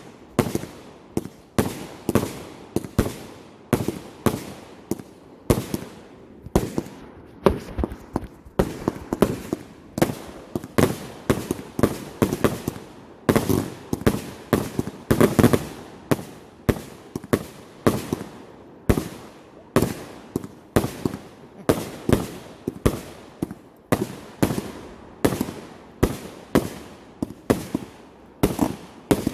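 Fireworks going off in a long, unbroken run of sharp bangs, about one or two a second at an uneven pace, each with a short ringing tail.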